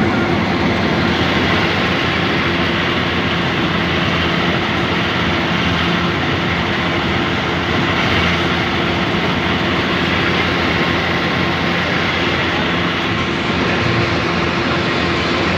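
Combine harvester's engine and machinery running steadily as it travels along a road, heard from on top of the machine, with a constant low hum.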